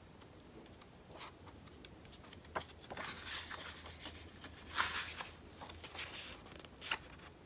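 Paper pages of a softcover notebook being turned and fanned by hand: a few faint, short rustles and page flaps, the loudest about five seconds in.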